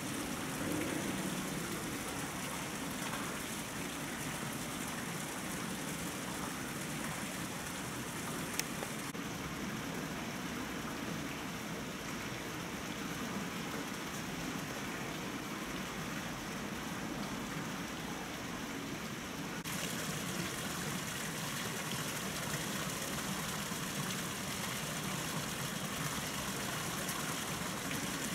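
Steady splashing and trickling of water from a tiered stone courtyard fountain. The brighter hiss dims about nine seconds in and comes back near twenty seconds.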